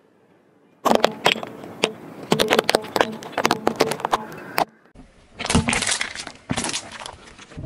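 Sticks of sidewalk chalk snapping and crunching under a slowly rolling car tyre: a rapid run of sharp cracks lasting about four seconds. After a brief gap, a second spell of crunching comes as a tyre rolls over another object.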